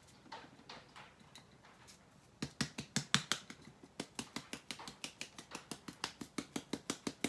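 Small handheld powdered-sugar shaker cup being tapped by hand to dust sugar onto a tea towel: a quiet run of sharp, even taps, about four or five a second, starting about two and a half seconds in.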